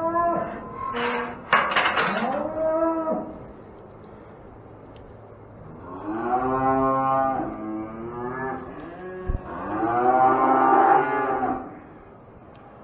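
Cattle mooing in a livestock barn: several short moos in the first few seconds, then two long, drawn-out moos in the middle and toward the end. A sharp knock sounds about a second and a half in.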